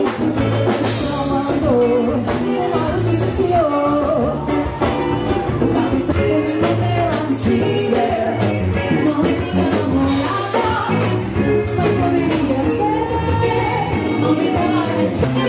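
Live band playing: a singer over guitar and drum kit, with a steady beat.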